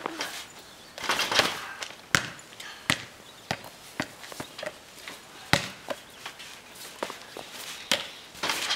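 Trampoline being bounced on, the mat and springs giving a sharp knock with each landing, unevenly about every half-second to a second.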